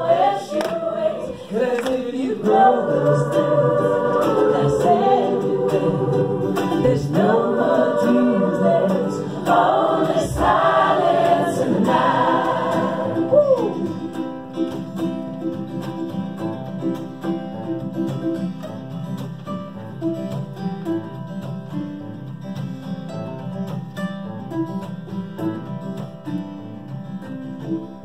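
Mixed student choir singing with acoustic guitar accompaniment. About halfway through the singing gives way to steadier, quieter held chords that fade near the end.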